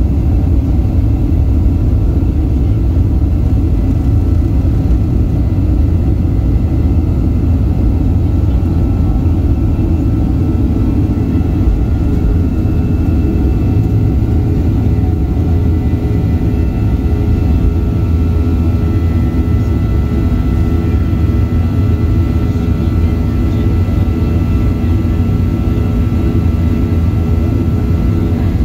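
A Boeing 737-800's CFM56-7B jet engines at takeoff thrust, heard from a window seat inside the cabin. There is a steady, heavy roar with a faint high whine through the takeoff roll, liftoff and initial climb.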